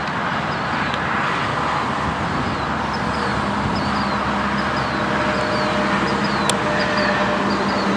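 Steady outdoor background rumble and hiss, like distant road traffic, with a single sharp tennis-ball strike about six and a half seconds in.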